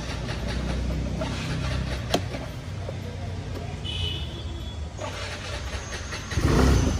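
Aprilia SR150 scooter's single-cylinder engine being started at a standstill with its fuel all but used up, turning over with a louder surge near the end. A single click about two seconds in and a brief high beep about four seconds in.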